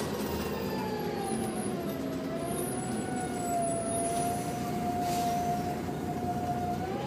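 Volvo B7TL bus running, heard from inside the saloon: its Voith gearbox whines, the pitch sliding down as the bus eases off and then holding steady, over the diesel engine and road rumble.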